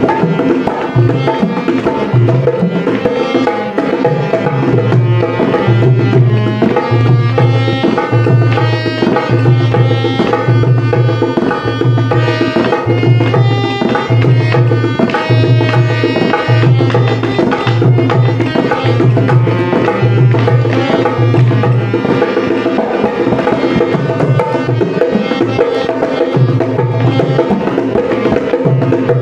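Dholki, the two-headed rope-tensioned barrel drum, played with both hands in a fast rhythm over a melodic accompaniment. Deep bass-head strokes land about once a second through the middle stretch.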